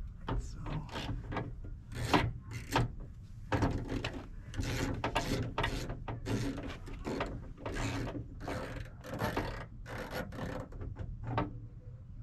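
Ratchet wrench with a 10 mm socket backing out a door-handle mounting bolt, its pawl rasping in quick repeated strokes, about two a second, which stop near the end.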